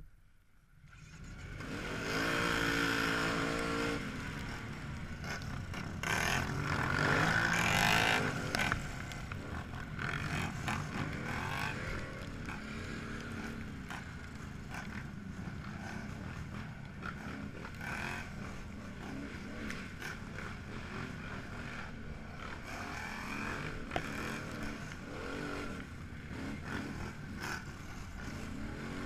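A field of ATVs launching together at a race start: about a second in the sound jumps from quiet to loud engines, led by the 2013 Can-Am Renegade 1000's V-twin revving hard. It revs up twice in the first eight seconds, then runs steadily at speed with wind rushing on the microphone.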